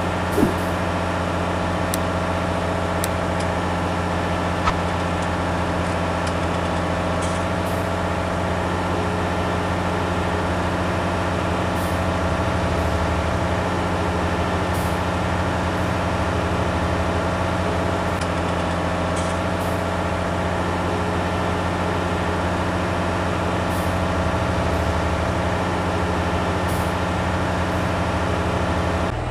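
Heavy engine running steadily at an even pitch and level, with a couple of sharp clicks.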